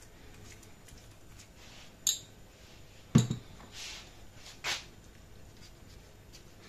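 Quiet kitchen handling while puff pastry is brushed with water and pressed: a few light clicks and knocks of a utensil, a sharp click about two seconds in and a duller knock about a second later, then a smaller click.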